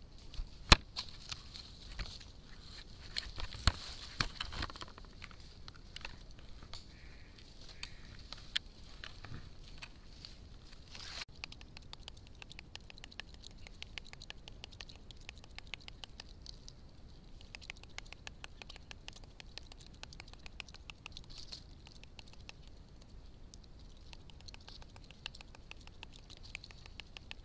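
Sharp knocks and rubbing in the first few seconds, made by a Sulawesi black crested macaque handling the camera trap at close range. From about a third of the way in, a long run of fast, even clicking follows.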